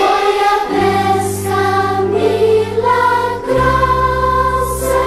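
A choir sings a Christian song about the miraculous catch of fish, with instrumental accompaniment that holds long bass notes under the voices.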